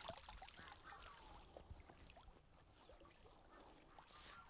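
Near silence, with faint scattered small ticks.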